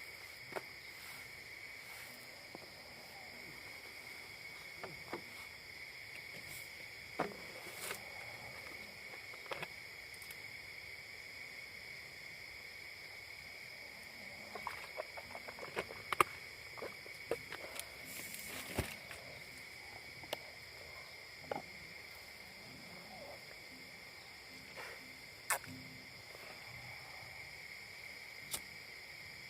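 Steady night chorus of insects, a continuous high-pitched drone at two pitches, with scattered sharp clicks and knocks, most of them past the middle.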